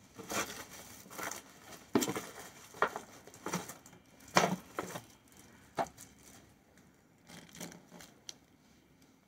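Clear plastic wrapping on small candles crinkling and rustling as they are handled, in irregular crackles, the loudest about two and four and a half seconds in.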